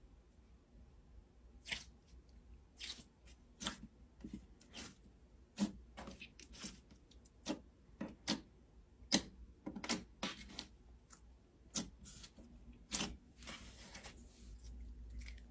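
Slime being squeezed and poked by hand, making irregular sharp clicks and pops, about one or two a second, some in quick pairs.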